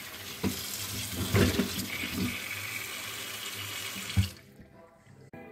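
Water from a kitchen tap running onto white asparagus spears in a stainless steel sink, with a few knocks as the spears are handled. A sharp knock comes just after four seconds, and the water stops abruptly.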